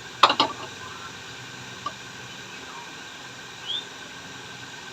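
Two sharp knocks in quick succession, then a faint tick and a brief rising chirp, over a steady low hum.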